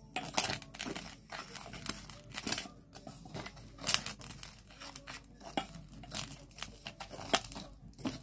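Ladle scraping and stirring rice flour in a steel bowl, in quick irregular strokes, working hot melted ghee into the flour.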